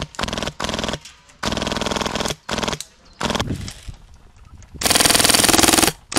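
Airsoft M60 electric machine gun firing a series of short full-auto bursts. The longest and loudest burst, about a second long, comes near the end.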